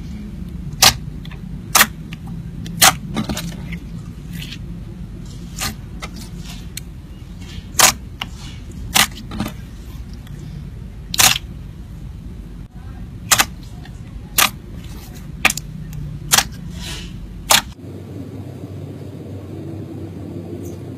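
Slime being pressed and played with by hand, giving sharp clicking pops about once a second over a steady low background hum; the pops stop near the end.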